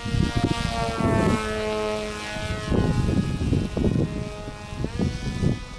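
Electric motor and propeller of an RC flying wing whining, the pitch shifting several times as it passes and changes throttle. Strong wind buffets the microphone in low rumbling gusts.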